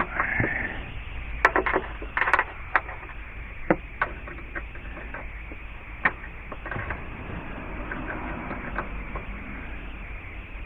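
Scattered clicks and knocks of tools and parts being handled, with two louder clattering clusters about one and a half and two and a half seconds in.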